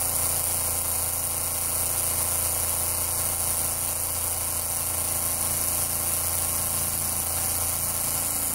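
Inexpensive 24 V DC submersible well pump running steadily under load, pumping against about 30 psi of back pressure, with a steady hum.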